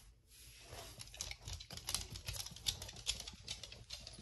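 Chow chows' claws clicking on a wooden floor as the dogs walk about: a quick, irregular run of clicks, busiest in the middle of the stretch.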